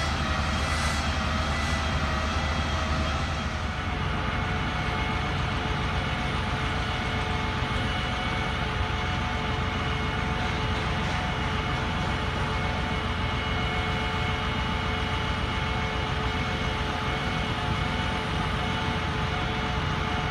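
Cummins 5.9L diesel of a bucket truck running steadily to drive the hydraulics, with a steady whine over the engine's rumble as the articulating aerial boom moves. The rumble and whine shift slightly about three and a half seconds in.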